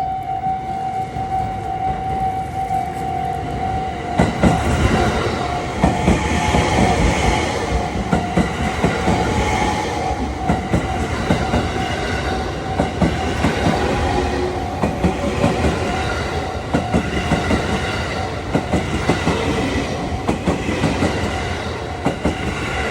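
JR West Haruka limited express passing over a level crossing, its wheels clattering over the rail joints. The crossing's warning alarm sounds as a steady tone at the start, and the train noise swells about four seconds in and stays up until near the end.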